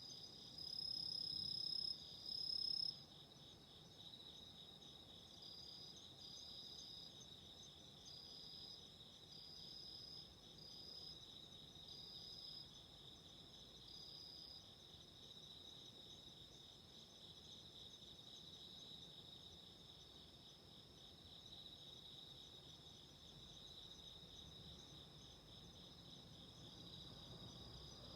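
Autumn insects (crickets) calling: a steady, rapidly pulsing high trill throughout. A second insect calls on a slightly higher pitch, loudest in two bursts in the first three seconds, then in short chirps every second or two.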